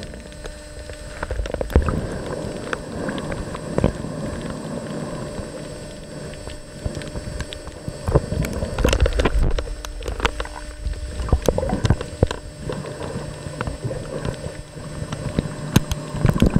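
Underwater noise of water rushing and bubbling around the camera, with scattered sharp clicks and knocks, louder for a couple of seconds about halfway through, over a faint steady hum.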